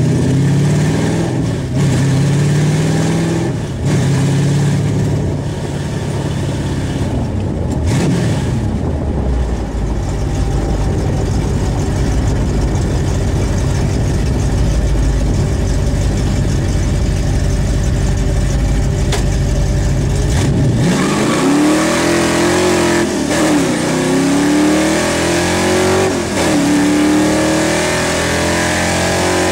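1979 Chevrolet Malibu's 355 Vortec V8, with a T56 six-speed manual, heard from inside the cabin: it runs at a steady cruise under a low drone, then about two-thirds of the way through it is opened up hard. Its pitch climbs sharply and drops back twice at quick upshifts.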